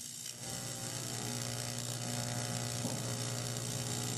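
Steady electric buzz and hum of an AC TIG welding arc on thin aluminum, from a Lincoln welder.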